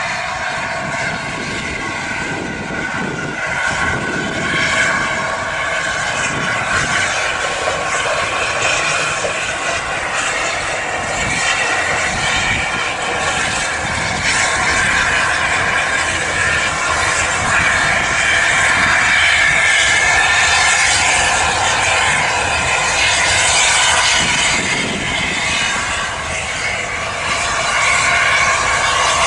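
The three-cylinder A4 Pacific steam locomotive 60007 Sir Nigel Gresley passes with its train. It makes a steady roar of exhaust and running gear that swells as it crosses a girder bridge.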